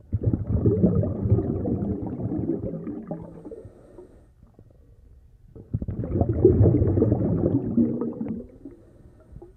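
Muffled churning and gurgling of stirred-up water, heard through a submerged camera. It comes in two stretches, with a quieter lull near the middle.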